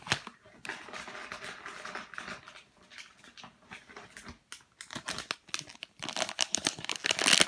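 Plastic packaging crinkling and rustling as it is handled, growing louder over the last second or so.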